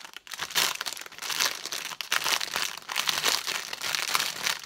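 Plastic packaging crinkling irregularly as hands squeeze and turn a bundle of small plastic bags of diamond-painting drills, with several louder rustling swells.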